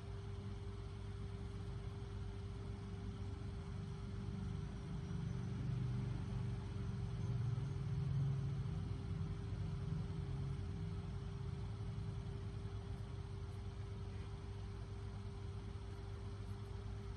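Low background motor rumble with a constant hum, growing louder for a few seconds in the middle and easing off again.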